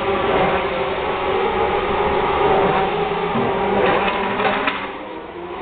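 Petrol pouring from a metal jerry can into a plastic container, over a steady mechanical hum, with a few short clinks from the can about four seconds in.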